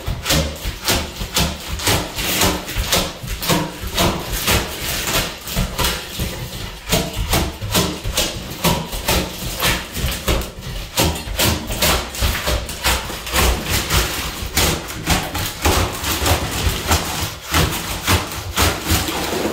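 Long-handled floor scraper with a toothed blade being shoved repeatedly across the subfloor, scraping up water-loosened vinyl composition tiles (VCT), with the brittle tile breaking and pieces clattering. The strokes come in quick, irregular succession, several a second.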